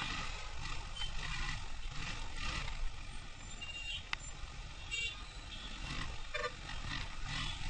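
Traffic noise heard from a motorcycle crawling through heavy city traffic on wet roads: a steady low rumble of engines and tyres with road and wind noise.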